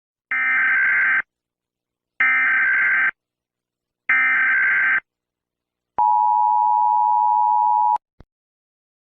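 Emergency Alert System SAME data bursts: three screeching digital bursts of about a second each, evenly spaced. Then a steady two-tone attention signal near 1 kHz sounds for about two seconds and ends in a short click.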